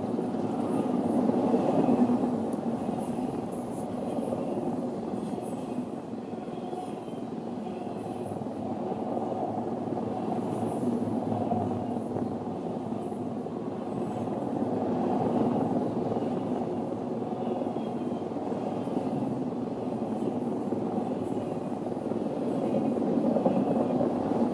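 Freight train of enclosed autorack cars rolling past: a steady rumble and clatter of steel wheels on the rails, gently swelling and easing as the cars go by.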